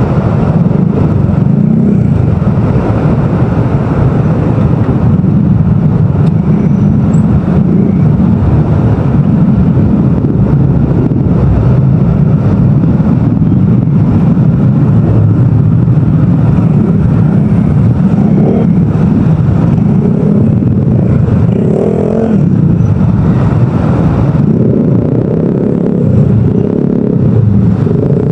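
Motorcycle engine running at low speed in slow, crowded traffic, a steady low rumble mixed with the engines of surrounding motorcycles and scooters.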